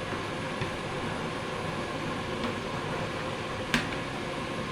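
Steady hiss of kitchen background noise, with one sharp click about three-quarters of the way through.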